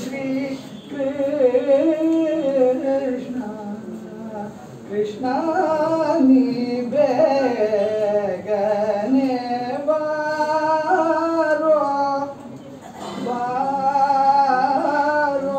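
A single voice singing a devotional song unaccompanied, in long held melodic phrases with two short breaks.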